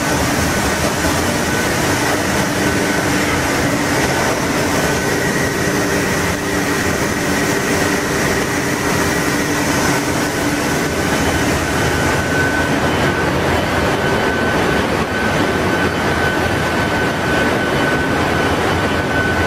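Ship's engine room machinery running: a loud, steady din with a few faint held tones in it.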